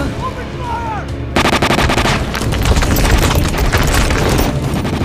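Rapid automatic gunfire: a dense, unbroken run of shots that starts about a second and a half in.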